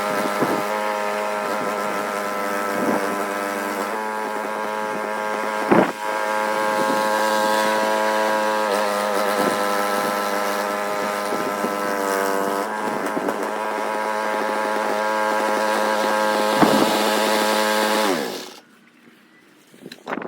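Gasoline snowblower engine running steadily under load, with two sharp knocks along the way. About eighteen seconds in, its pitch sags and it dies: the engine has run out of gas.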